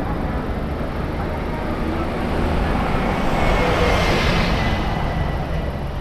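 Tractor-trailer driving past, its tyre and engine noise swelling to a peak about four seconds in and then fading, over a steady low rumble of traffic.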